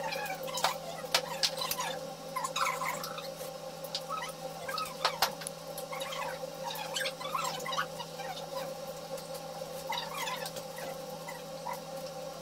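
Eating utensils clinking and tapping against bowls and plates, a scatter of sharp clicks, over a steady electrical hum, with short faint high-pitched sounds in between.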